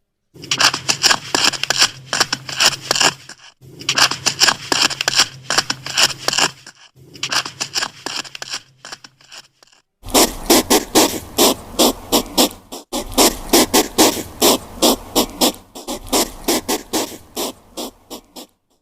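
Rapid dry scratching clicks, many a second, in several separate takes; the last take, from about ten seconds in, is steadier with a low hum beneath.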